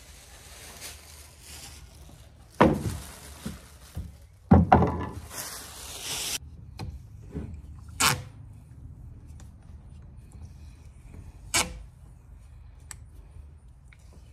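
Hands stripping worn grip tape from a chainsaw's wrap handle: a few sharp knocks and thumps, the loudest about two and a half and four and a half seconds in, and a couple of seconds of tape tearing away that rises and stops suddenly.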